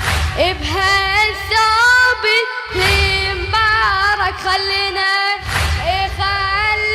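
A boy's high voice singing a latmiya, the Shia mourning chant of Muharram, in long, ornamented notes that bend and turn. Under it runs a low pulsing beat that drops out briefly twice.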